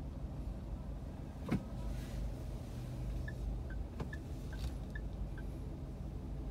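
A car idling at a standstill, heard from inside the cabin: a steady low rumble. There is a sharp click about a second and a half in and a weaker one about four seconds in, plus a short run of six light ticks near the middle.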